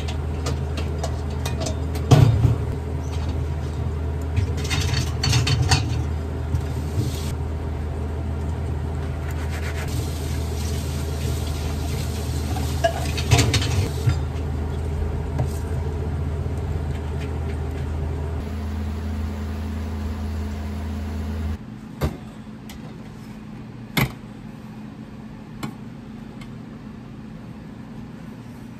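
Lever-release metal scoop scraping through thick kabocha pumpkin batter and clicking against a metal muffin tin as it drops portions into the cups, over a steady low hum. The hum stops about three-quarters of the way through, leaving only a few light clicks.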